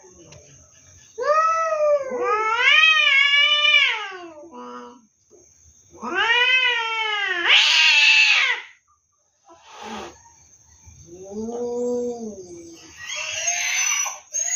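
Cats in a standoff yowling at each other: a run of long, wavering caterwauls that rise and fall, the longest about three seconds, broken by harsh hisses about halfway through and near the end. One lower-pitched yowl comes about two-thirds of the way in. These are aggressive territorial threat calls.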